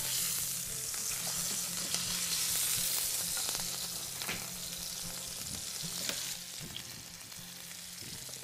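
Beef steak searing in hot oil in a frying pan with garlic cloves and shallots: a steady sizzle with a few light clicks, easing a little in the second half.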